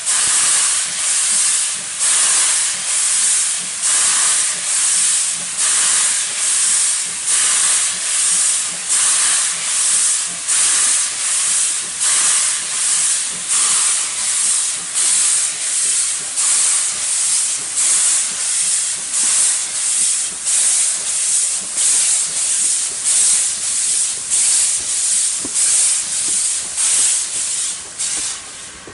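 Steam locomotive moving off slowly with its cylinder drain cocks open. Steam blows out in rhythmic hissing bursts, about one a second, and the hissing falls away near the end. The open cocks clear condensed water from the cylinders while the engine warms to its work.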